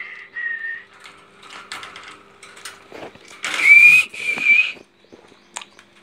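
Young rose-ringed parakeets giving whistled calls: a short steady whistle at the start, then a louder, harsher whistling call about three and a half seconds in. Light clicks and taps from the birds on the wire cage and plastic basket come in between.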